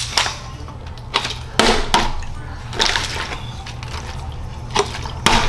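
Partly filled plastic water bottle flipped onto a tabletop: water sloshing and several short knocks as it hits the table, ending with the bottle standing upright.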